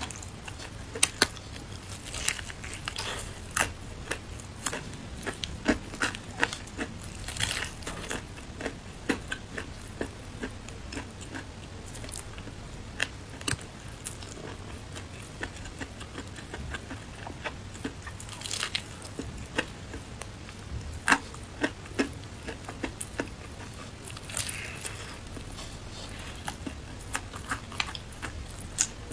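Crispy breaded fried chicken being eaten: irregular crunching bites and chewing of the fried crust, with crackles as pieces are torn off by hand. The crunches come as sharp separate snaps, with a few denser crackly spells about a third of the way in, past the middle and later on.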